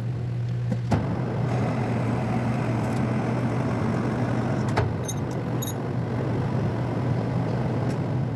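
Metal lathe running steadily with a low hum from its motor and drive as a long steel rod turns in the three-jaw chuck. A sharp click comes about a second in and another near five seconds.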